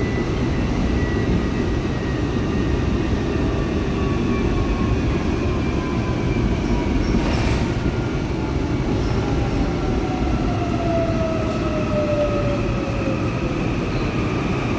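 Seoul Line 4 subway train running on the track, its Woojin IGBT traction inverter and motors whining over a steady low rumble of wheels on rail. The whine falls slowly in pitch as the train slows. A brief hiss comes about halfway.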